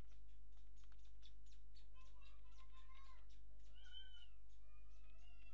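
Computer keyboard keys tapped in quick succession, then a cat meowing several times from about two seconds in, over a steady low electrical hum.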